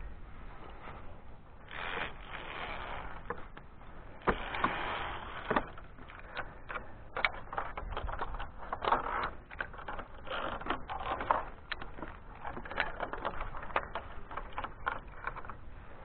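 Metal harness clips clicking and scraping against a steel safety cable, over rustling handling noise. Sharp clicks come thick and fast from about four seconds in.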